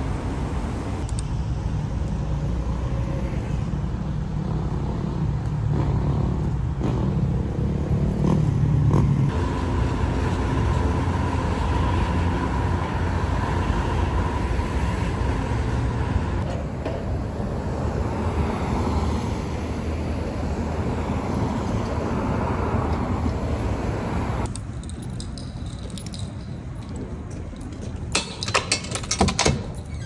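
City street traffic: cars running past in a steady rumble. About 25 seconds in it drops to a quieter background, and near the end there is a brief jangle of keys.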